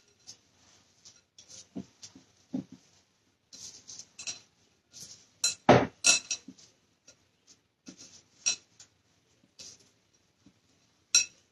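Hands in nitrile gloves mixing a salmon, cracker-crumb and egg mixture in a glass bowl, with irregular soft clicks and knocks of the glass bowl; the loudest knock comes a little under six seconds in.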